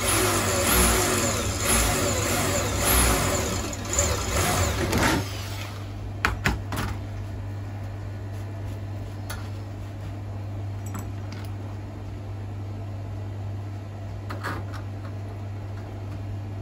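Corded electric drill boring a hole in an arcade fruit machine's button panel, its motor whine wavering up and down for about five seconds before stopping. Two sharp knocks follow about a second later, over a steady low hum.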